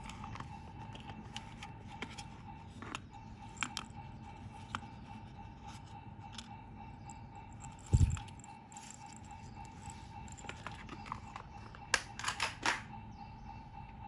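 Small metal fishing hooks being handled and set down on a textured mat: light scattered clicks and taps, a dull bump about eight seconds in, and a quick run of clicks near the end. A steady faint hum runs underneath.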